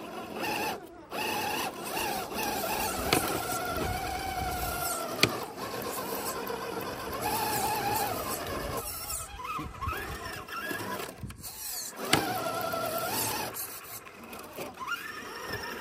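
Scale RC crawler trucks' electric motors and gear drivetrains whining, the pitch holding, rising and falling with the throttle as they crawl over rock. A few sharp clicks, at about 3, 5 and 12 seconds, come in among the whine.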